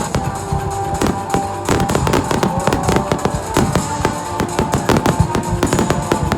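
Fireworks going off in a rapid, irregular string of bangs and crackles, with music playing underneath.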